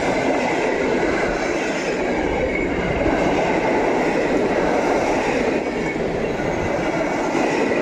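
PKP Intercity passenger coaches passing close by at speed: a loud, steady rush of wheels running on the rails.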